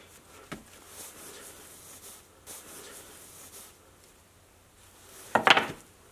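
Hands working self-adhesive foam weatherstripping onto the edge of a wooden plate on a workbench: faint rustling and light taps. Near the end comes a short, louder burst of handling noise as the plate is pressed down and shifted on the bench.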